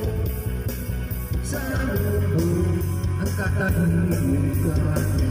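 Karaoke: a man singing into a microphone over a music backing track with a steady bass line.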